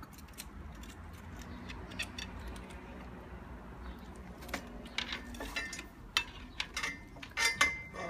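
Metal clinks and knocks of an OnGuard Bulldog DT steel U-lock and its cable being handled and fitted around a bike frame and rack. The clinks come more often from about halfway through, with a few brief ringing clanks near the end.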